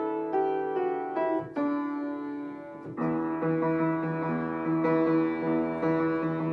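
Upright piano played solo. A held chord fades away, then about three seconds in a louder, fast repeating figure of notes begins.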